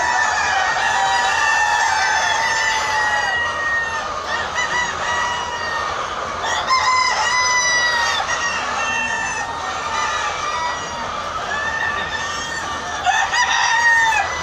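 A flock of laying hens calling together: a dense, continuous chorus of overlapping drawn-out calls and clucks, with louder flurries of calls about halfway through and near the end.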